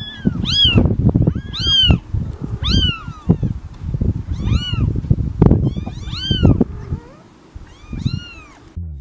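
Young kittens mewing: about seven high-pitched mews, each rising and then falling in pitch, roughly one a second, over low scuffling noise.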